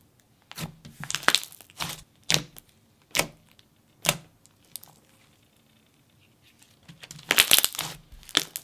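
Thick icy-jelly hybrid slime, made with instant snow, being squeezed and poked by hand, giving short crackling bubble pops. A few come singly at first, and a dense run comes near the end.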